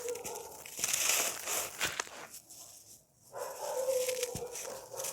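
Dry, crunchy crumbly material being crushed and crumbled by hand, crackling in two spells with a short pause between. A brief faint whine is heard during the second spell.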